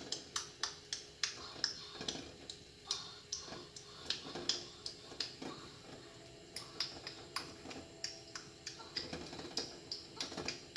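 A pot of eggs cooking, giving off a run of sharp, uneven clicks and taps, about two to three a second.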